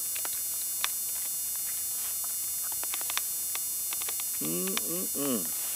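Doberman puppies suckling from their mother: scattered small clicks and smacks over a steady hum, with a short voice-like sound about four and a half seconds in.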